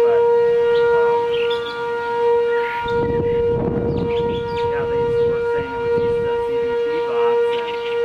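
Outdoor tornado warning siren sounding a loud, steady tone that does not rise or fall, the signal to take shelter. A burst of rushing noise comes about three seconds in and lasts a second or so.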